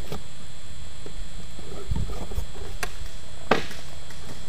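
Cardboard battery box being handled and put down, with a few light knocks and low thumps and one sharp tap about three and a half seconds in, over a steady low background hum.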